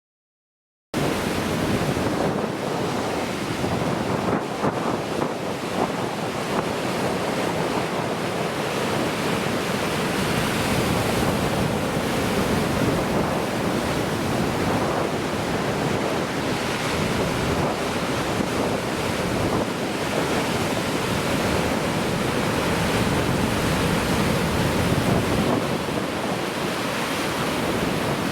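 Heavy typhoon-driven surf breaking and washing continuously along a rocky coast, with wind buffeting the microphone. The sound starts abruptly about a second in.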